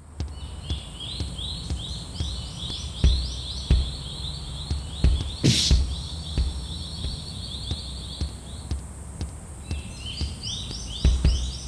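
Japanese railroad crossing warning bells ringing, a fast electronic ding repeating about three times a second with two pitches overlapping; they break off for about a second near the end and start again. Low thumps run under them, with a loud rushing burst about halfway through.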